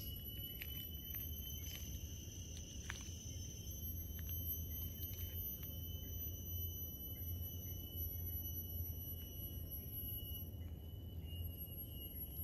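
Insects calling: a steady high-pitched tone that thins for a moment near the end, over a low rumble, with a few faint clicks.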